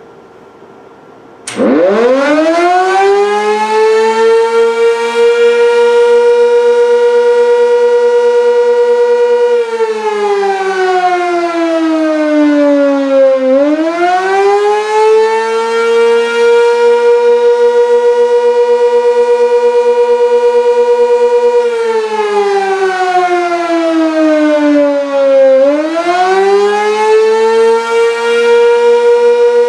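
Sentry 16V1T-B outdoor warning siren sounding the Attack signal in a test. It winds up about a second and a half in and holds a steady pitch for several seconds. It then slides down and winds back up twice, holding the pitch between the slides.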